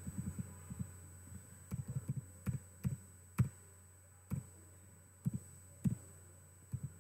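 Clicks from paging through presentation slides on a computer: a quick flurry at first, then single clicks every half second to a second, each with a dull thump. A steady low electrical hum runs beneath.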